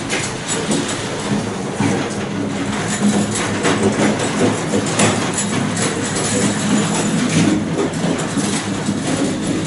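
Red rolling steel tool cabinet pushed across a concrete floor: casters rumbling, with drawers and tools rattling and clattering inside.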